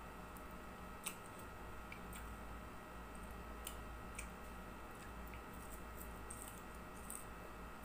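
Eating by hand: scattered faint, crisp clicks as fingers pick at fried dried fish (tuyo) and rice on a plate and the food is chewed, over a steady faint hum.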